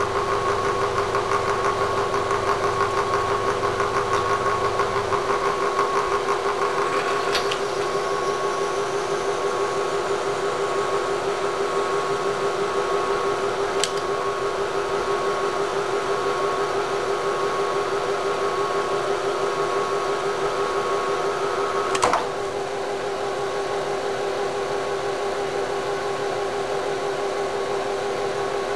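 Machine spindle motor running with a steady hum as it power-drives a tap into a stripped main bearing cap bolt hole in a cast-iron Chevrolet 4.3 V6 block, cutting new threads for a thread-repair insert. A few light clicks come through, and the hum drops slightly after a click about 22 seconds in.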